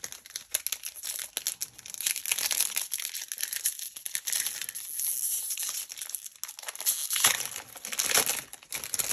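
Foil wrapper of a Magic: The Gathering booster pack crinkling as it is handled, torn open and crumpled, in a dense crackle with a short lull about six seconds in.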